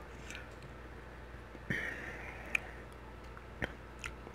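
A short sniff about a second and a half in, then a few small, sharp clicks from a plastic utensil working at the food.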